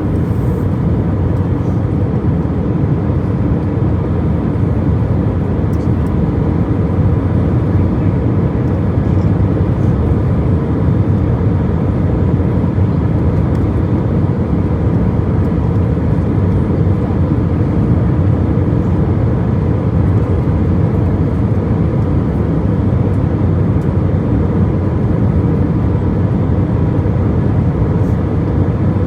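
Steady cabin noise inside an airliner, a low, even rush of engine and airflow noise with no change in pitch or level, and a faint steady tone above it.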